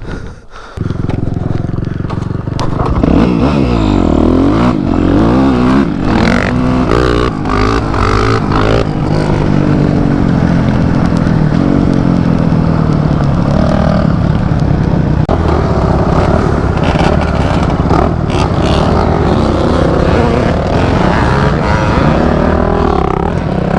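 Off-road motorcycle engine that comes in loudly about a second in, revs up and down several times, then runs steadily under load while climbing.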